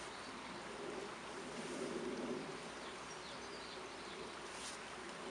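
Quiet steady outdoor background noise, with a faint low hum through the middle and a single light click near the end.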